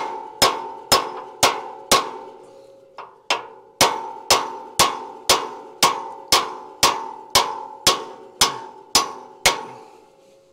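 Hammer blows on a steel drift, about two a second, driving the pivot pin out of a Morris seeder tine; each blow rings out metallically. The hammering pauses for a moment about two seconds in, then picks up again at the same pace and stops near the end.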